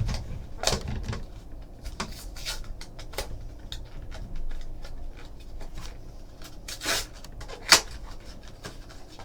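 A trading-card box being opened and its cards handled: a run of short clicks, taps and rustles, the loudest a sharp click about three-quarters of the way through.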